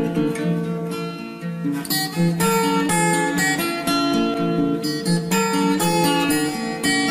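Background music: a plucked acoustic guitar playing a quick melody of separate notes.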